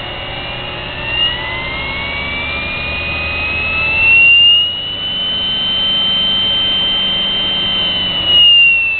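Sherline mini lathe's variable-speed motor running, its whine rising in pitch over the first few seconds as the speed control is turned up, holding steady, then starting to drop near the end. Two brief louder surges come about four and eight and a half seconds in.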